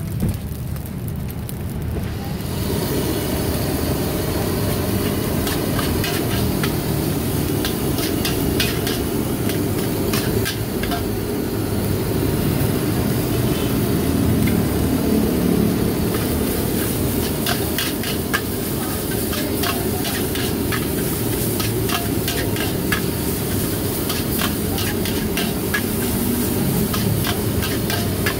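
Fried rice being stir-fried in a wok, a metal spatula repeatedly clanking and scraping against the pan from about two seconds in, over a steady low rumble.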